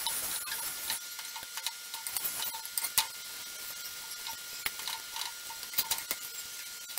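Melted ghee or oil sizzling on a roti cooking on a hot iron tawa while a spoon spreads it over the bread. Irregular light clicks and taps come from the spoon against the griddle and the metal bowl.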